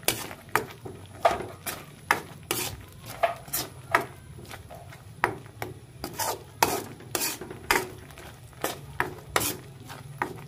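A spatula scraping and knocking against a frying pan as thick cooked ginamos (fermented fish paste) is stirred, in uneven strokes about twice a second.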